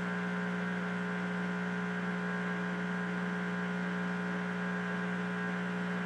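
Whirlpool Duet front-loading washer's drain pump running with a steady, unchanging hum as it tries to empty the tub; the drain pump assembly is clogged, so the water drains poorly.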